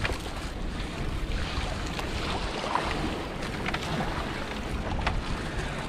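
Wind buffeting the microphone over water washing around a small fishing boat, with a few light knocks.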